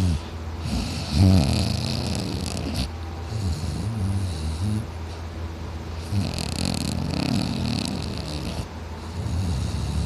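A man snoring loudly: several long snores, each carrying a breathy hiss of air.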